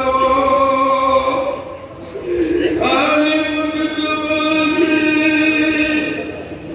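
A man's voice chanting Arabic devotional phrases in long drawn-out held notes: one phrase, a short break about two seconds in, then a second, longer held phrase.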